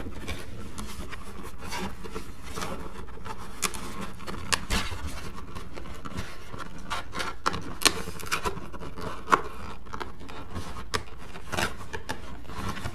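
Cardboard box and packaging handled by hand: rubbing and scraping, with scattered light taps and clicks and two sharper knocks about eight and nine seconds in.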